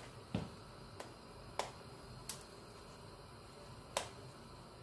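A few sharp plastic clicks at irregular intervals from the cap of a small plastic curry powder container as it is worked at by hand; the cap is hard to open.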